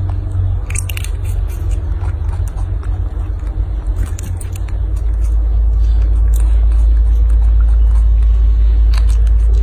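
A loud, steady low rumble that grows stronger and more even about halfway through, with a few faint clicks as a baby monkey bites into a tomato.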